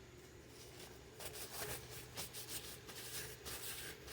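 Faint rubbing and scuffing of hands handling parts, an irregular run of short scuffs starting about a second in.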